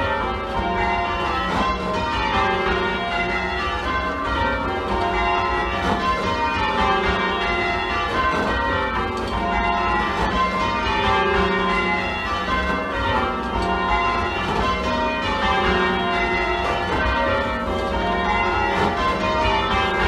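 A ring of eight English church bells, tenor about 15 cwt tuned to F, rung full-circle with the bells striking one after another in an unbroken even succession. The back six date from 1815–16; the two trebles were added by John Taylor & Co in 1930 and sound a little shrill, which the ringer puts down to Taylor's not tuning them to match the rest.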